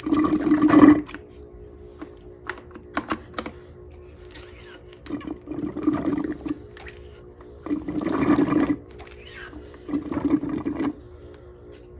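Hand-operated transfer pump being worked in repeated strokes, about one every two seconds, sucking thick power steering fluid thickened with stop-leak out of the reservoir, with gurgling liquid noises and small clicks between strokes.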